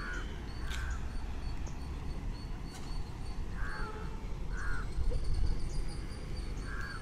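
Crows cawing, five short harsh caws in pairs about a second apart, over a steady low rumble.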